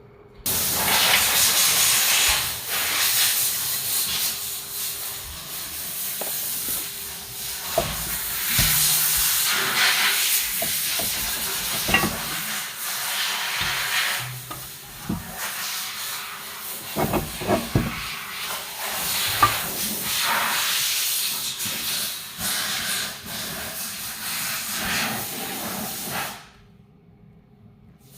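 Loud, rough hissing that swells and fades, with scattered short knocks. It stops abruptly near the end.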